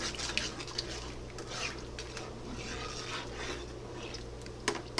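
A spoon stirring a thin broth in a nonstick skillet, with light scraping and clinking against the pan and a sharper clink near the end.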